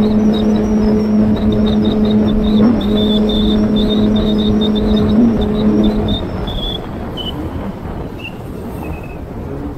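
Jet ski engine running at a steady pitch over a rush of noise. About six seconds in, the engine tone cuts out and the sound grows quieter.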